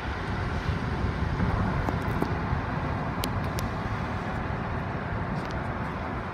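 Steady road and wind noise of a car driving along, heard from inside the car.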